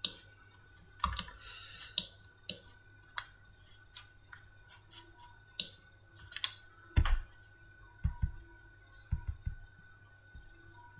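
Irregular light clicks and taps of computer keys, several a second at first and sparser later, with a dull thump about seven seconds in, over a faint steady hum.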